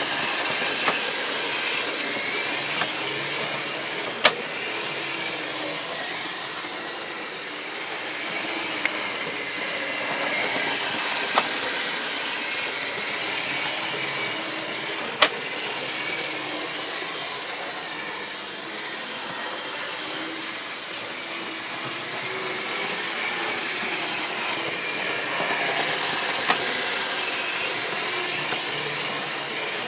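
Vintage Bachmann HO scale model train running steadily past on the track, a continuous whir of motor and wheels on the rails, with a few short sharp clicks scattered through it.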